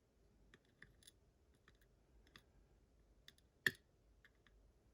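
Faint, scattered small clicks and ticks from handling the tiny pins and tools of a disassembled Vachette VIP lock, with one sharper click about three and a half seconds in.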